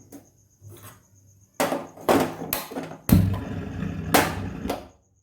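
A spoon scraping and knocking against a cooking pan while stirring a thick jaggery and ginger mixture. It is faint at first, then a run of loud knocks and scrapes starts about one and a half seconds in and cuts off abruptly just before the end.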